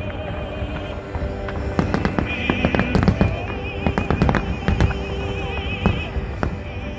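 Fireworks display with aerial shells bursting in a rapid run of bangs and crackles, thickest about two to three seconds in and again a little after four seconds, with music playing underneath.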